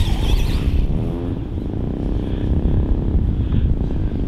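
Losi Promoto MX 1/4-scale electric RC dirt bike's motor whining as it revs up and eases off on the throttle, over a heavy rumble of wind on the microphone.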